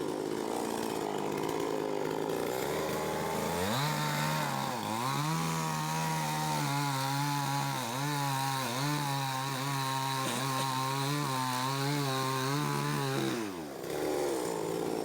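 Chainsaw running hard through wood. Its engine note climbs about three seconds in and holds high with a slight waver, then falls sharply near the end back to a rougher, lower sound.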